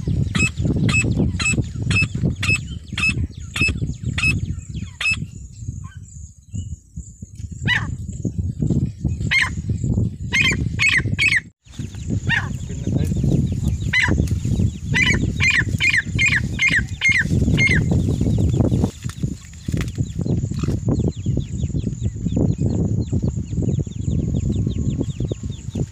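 Female francolin (teetar) calling: bouts of short, sharp, high notes repeated about twice a second, broken by pauses of a few seconds, over a steady low rumble.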